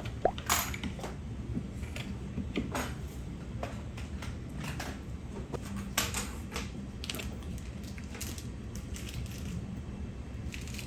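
Irregular small crinkles and clicks from a plastic piping bag squeezed in plastic-gloved hands while piping cream, over a low steady hum.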